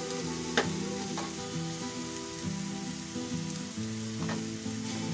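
T-bone steak sizzling steadily as it fries in a pan, with a few sharp clicks, about half a second in, a second in, and again near the end.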